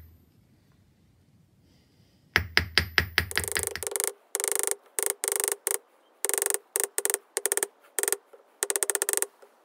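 A steel-faced forging hammer striking sterling silver wire on a steel bench block, drawing the wire out thinner. After about two seconds of quiet come quick runs of ringing metallic blows.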